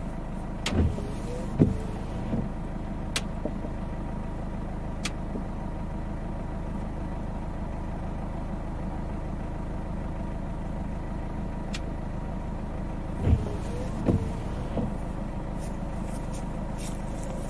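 Hyundai i40's engine idling, heard from inside the cabin, with the windscreen wipers sweeping twice on a low intermittent setting, about a second in and again about 13 seconds in. A few sharp ticks fall between the sweeps. The intermittent wipers switching on by themselves show that the timer works again after the rain sensor was re-bonded to the glass.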